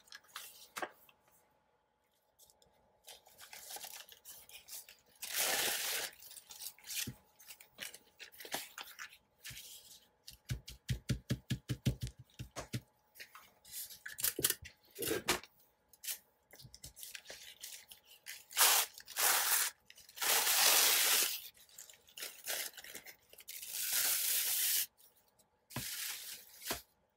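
Paper being handled, rustled and torn in irregular swishes, with a quick run of clicks about halfway through.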